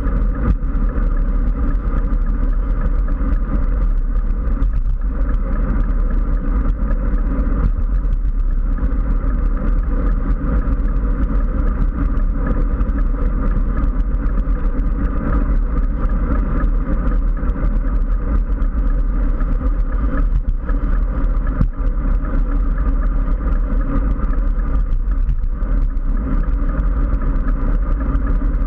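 Steady rush of wind and road noise on a handlebar-mounted camera on a bicycle riding at speed along a highway shoulder, heaviest in the low rumble, with motor traffic passing in the next lane.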